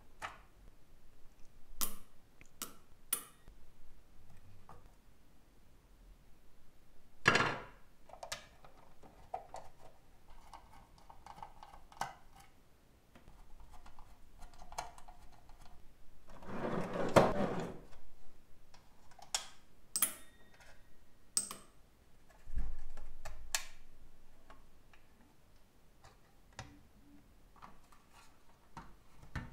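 Needle-nose pliers and a screwdriver working the screws of a rusty metal Tonka toy racing car. There are scattered clicks and taps of metal on metal, a scraping rustle about halfway through, and a dull thud a few seconds after it.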